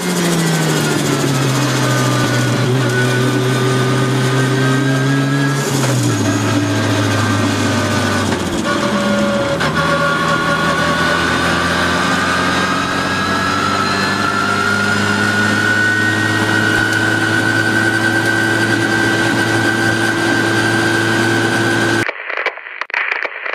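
Supercharged Lotus Elise engine heard from the open cockpit. Its revs fall over the first couple of seconds, drop again in steps, then hold steady at lower revs, with a higher whine rising slowly above. About 22 s in it cuts off to crackly TV-static noise.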